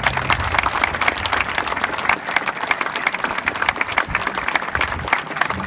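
Audience applauding, a dense, even clatter of clapping, while the orchestra's last held low note fades out in the first half second.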